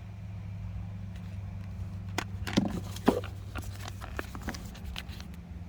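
Scattered clicks and taps of camera gear, a flash unit and its accessories, being handled, over a steady low hum.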